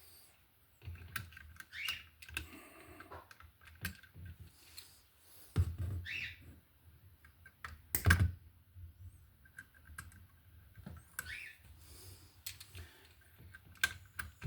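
Scattered clicks, taps and scrapes of hand tools working electrical wire at an outlet, with a couple of sharper knocks, the loudest about eight seconds in.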